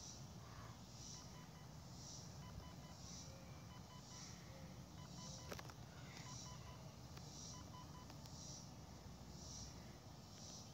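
Faint electronic beeps from the Tello drone app's low-battery warning: a soft high beep about once a second, with short dial-tone-like electronic tones between them, warning that the drone's battery is low. One small click comes about halfway through.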